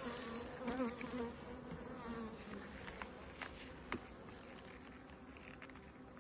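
Honeybees buzzing around an open hive during a frame inspection: a steady hum of many bees, the pitch wavering as individual bees fly past near the start, with a few light clicks about three to four seconds in.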